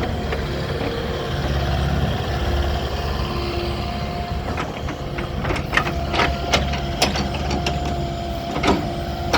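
Kubota KX080-4 mid-size excavator's diesel engine running with a steady low hum and a thin whine that comes and goes. There are several sharp metallic clanks in the second half.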